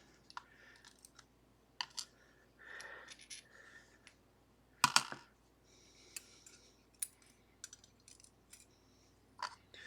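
Light, irregular metallic clicks and taps of small lock parts being handled as a Ruko 500 pin-tumbler lock is taken apart, its pins and springs being removed. The loudest click comes about five seconds in.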